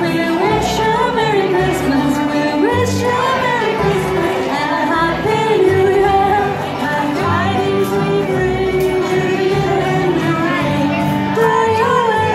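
Live acoustic string band playing: bowed fiddle, upright bass, acoustic guitar and banjo, with women singing the song.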